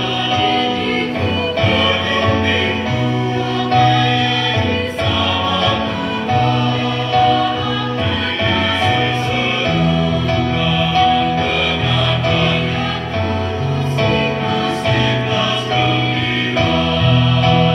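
Mixed choir of men's and women's voices singing in harmony, with held chords and a low bass line moving from note to note.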